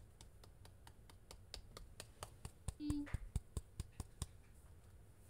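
A run of light, sharp clicks and taps, about three or four a second and getting stronger after the first two seconds, with a brief hum of a voice about three seconds in.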